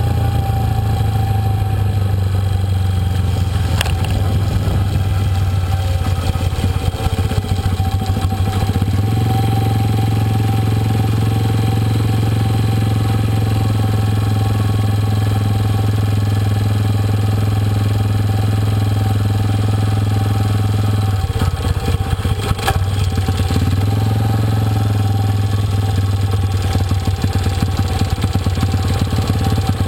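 An engine running steadily, a low hum that settles about nine seconds in and wavers briefly between about 21 and 24 seconds in.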